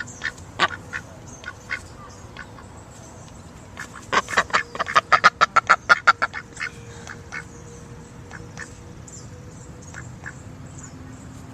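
Duck quacking: a few scattered quacks, then a fast run of a dozen or so louder quacks around the middle, then occasional fainter ones.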